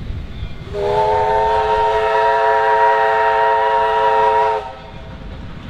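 Steam locomotive's chime whistle sounding one long blast of about four seconds, a chord of several steady notes that cuts off sharply.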